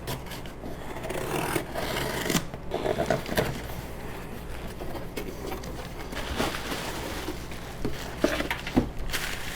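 Handling noise: continuous rubbing and scraping of objects being moved about on a surface, with a few sharper knocks and clicks.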